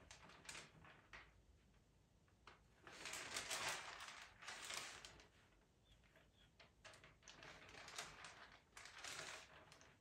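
Faint rustling and handling of paper sheets, a printed photo held folded back over pastel paper, in a few soft bursts: the loudest about three to five seconds in, another run from about seven to nine seconds.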